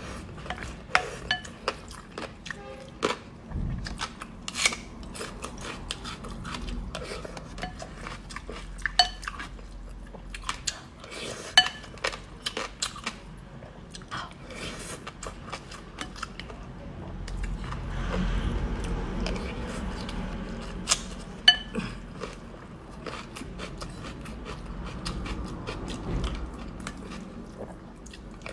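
Eating utensils clinking irregularly against a dish, some strikes ringing briefly, with chewing between them. About two-thirds of the way through there is a denser stretch of handling and chewing.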